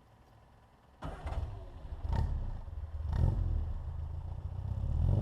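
Performance-upgraded 948 cc four-cylinder engine of a 1960 Austin-Healey Bugeye Sprite starting up about a second in and running, revved briefly twice.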